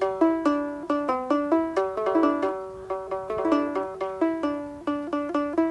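Instrumental interlude of a plucked string instrument playing a quick melody of single notes, several a second, that stops abruptly near the end.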